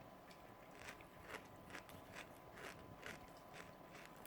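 Faint chewing of a bite of filled white chocolate, soft crunchy clicks about twice a second.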